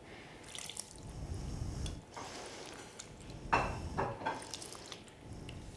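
Sago pearls (mutiara) in syrup being tipped and spooned into a ceramic bowl of ice cubes, avocado and nata de coco: soft wet squelching and dripping, with a few light knocks about three and a half seconds in.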